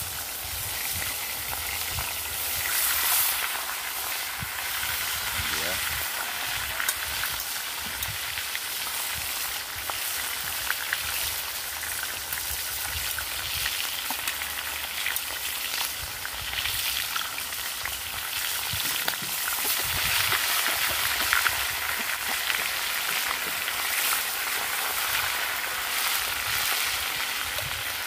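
Whole mutton snapper frying in hot oil in a black pot over an open fire: a steady sizzle with scattered crackles and pops.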